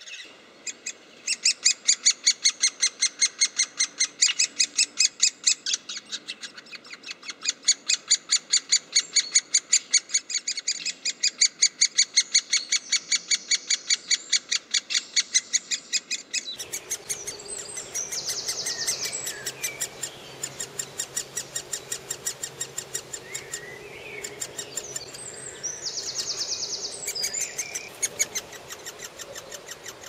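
Great spotted woodpecker nestlings calling from inside the nest hole: a loud, rapid, even string of sharp begging calls, about seven a second. About halfway through, the calling becomes fainter.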